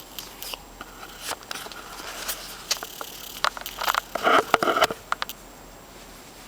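Scattered clicks and knocks with scraping, busiest around four to five seconds in: objects being handled and moved about.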